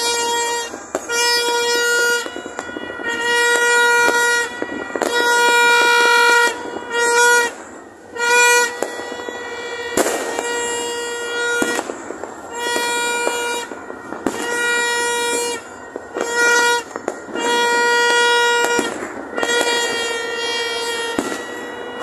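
Red plastic party horn blown in a long run of short toots, about twenty, each holding one steady buzzy pitch for half a second to a second. Fireworks crack now and then behind it.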